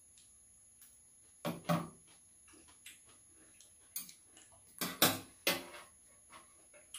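Eating sounds at a shared meal of curry rice: a few short clicks and smacks from chewing and from spoons and chopsticks touching ceramic bowls, in two clusters, about a second and a half in and again around four to five and a half seconds.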